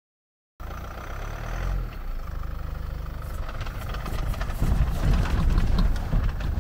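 Land Rover Freelander 2 diesel engine running at low revs as the car crawls down earth steps off-road. It starts about half a second in and gets louder about four and a half seconds in, with knocks and rattles over the low engine note.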